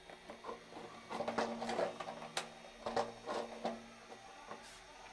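Hard plastic clicking, knocking and scraping as the fill valve of a plastic toilet cistern is taken out and fitted into the other side of the tank, with irregular clicks that are busiest in the middle and one sharper click a little past halfway.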